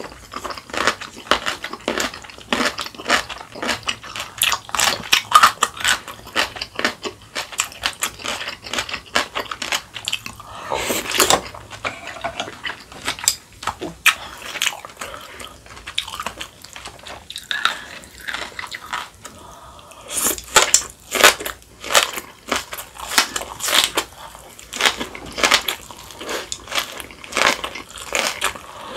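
Someone eating kimchi: repeated crisp crunching and chewing, busiest in the first few seconds and again from about twenty seconds in.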